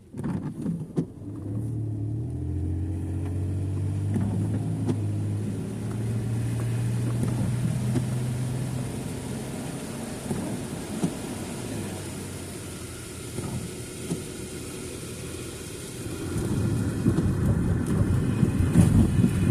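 Car engine running under way, its note rising as it pulls away and then holding steady. A rushing road noise grows louder near the end.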